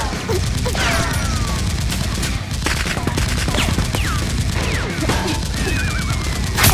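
Rapid gunfire sound effects with several falling, ricochet-like whistles, over background music with a steady low beat. A loud crack comes near the end.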